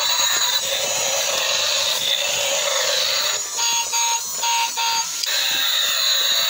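Yellow transforming robot car toy playing its electronic sound effects and music, with a run of about four short beeps a little past halfway.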